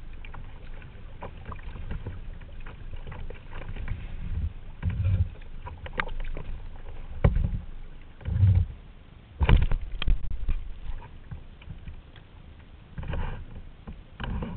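Sea kayak paddle strokes dipping and splashing in the water, uneven in rhythm, with several heavy low thumps in the middle and again near the end.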